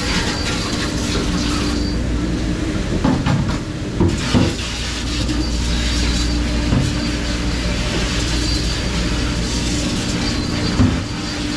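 Steady mechanical running noise with a constant low hum, broken by a few knocks and clatters.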